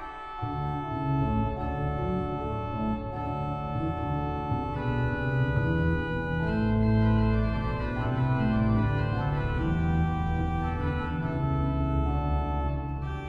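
Cathedral pipe organ playing sustained full chords, with deep bass pedal notes entering about half a second in.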